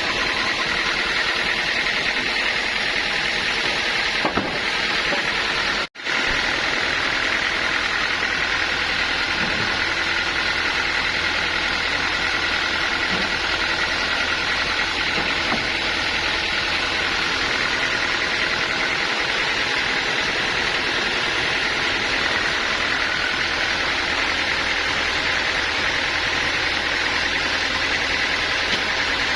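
Sawmill machinery running with a steady, unchanging noise, cut off for a split second about six seconds in.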